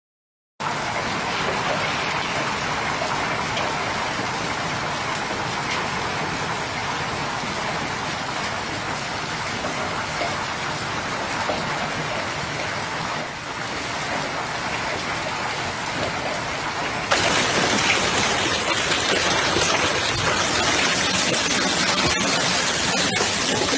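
Hail and heavy rain pelting a paved surface, a steady dense noise of hits. About 17 seconds in it switches abruptly to a louder, brighter rush: a downpour with water cascading off an overflowing gutter onto hail-covered ground.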